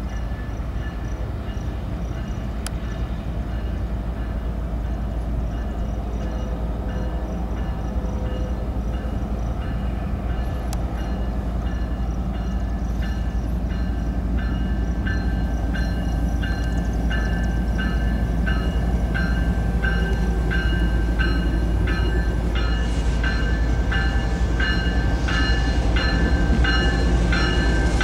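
Diesel freight locomotives approaching, their engines a steady low rumble that grows louder. From about halfway in, a bell rings about once a second.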